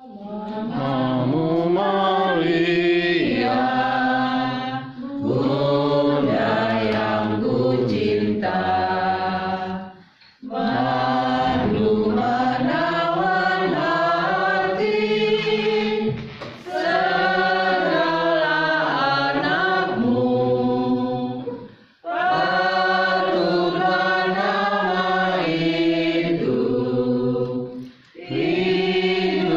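A group of voices singing liturgical song during Mass, in phrases of about five or six seconds with brief pauses for breath between them.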